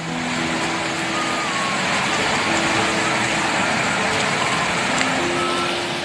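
Floodwater torrent rushing through trees: a loud, steady, dense roar of fast-moving water.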